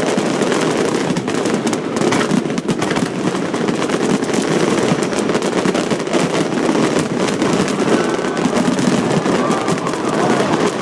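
Fireworks display in full barrage: a dense, continuous crackle of many bursts going off in quick succession, with no break.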